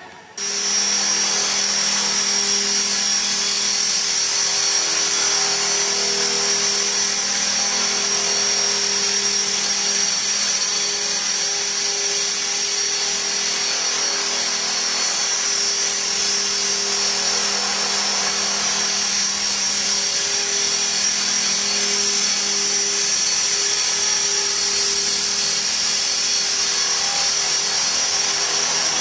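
E-Sky Belt-CP electric RC helicopter flying, a steady high motor whine over a lower rotor hum that comes and goes. It starts abruptly just after the opening.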